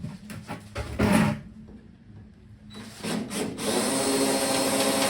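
A few short clanks of tool handling, then about three seconds in an electric drill starts and runs with a steady whine, its new bit drilling a small pilot hole through a spot weld in the truck's sheet-steel panel.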